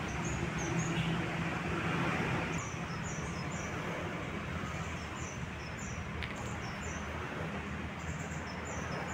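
Small birds chirping in short, high, repeated notes over a steady hum of road traffic.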